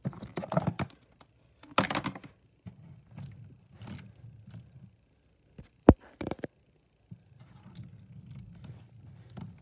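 A hand handling a plastic tub of Orbeez water beads: a few knocks as the tub is moved, then fingers pressing and stirring through the wet gel beads in a soft continuous rustle. A single sharp knock about six seconds in is the loudest sound.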